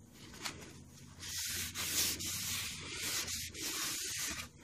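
Dry blue towel rubbing across a freshly stained pine board in several wiping strokes, starting about a second in, taking off the excess stain to even out the finish.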